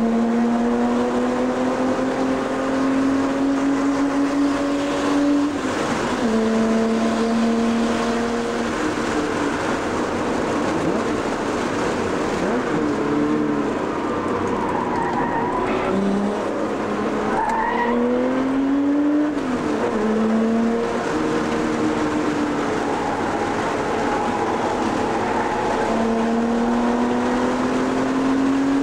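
Porsche engine heard from inside the cabin during hard track driving. Its note climbs under acceleration and drops sharply at a gearshift about five seconds in. In the middle it falls and swings up and down through the corners, then climbs steadily again near the end, over steady road and wind noise.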